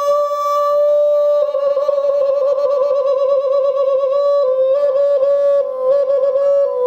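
A man humming a high, made-up tune with his mouth closed: long held notes that waver and step up and down in pitch.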